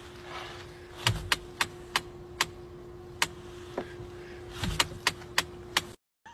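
Audi steering wheel being turned left by hand, giving about a dozen sharp, irregularly spaced clicks in two clusters over a faint steady hum: the weird noise a customer reports when steering left.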